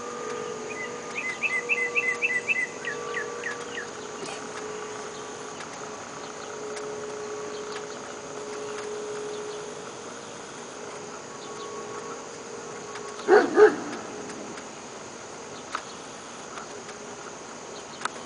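A dog gives two quick barks close together about two-thirds of the way through, over a steady drone of insects; a fast run of high chirps sounds near the start.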